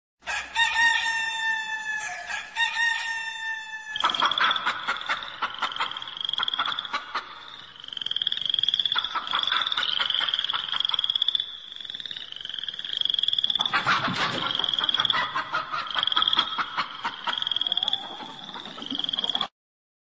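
Ringtone of a rooster crowing twice, two long calls falling slightly in pitch. These are followed by a long run of short, repeated rising chirps over rapid clicking, and the sound cuts off suddenly near the end.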